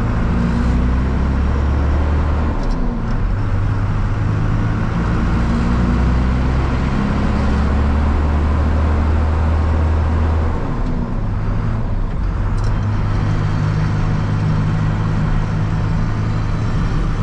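A vehicle driving along a road, heard from inside the cab: a steady engine hum over tyre and road noise. The engine's note changes pitch a few times.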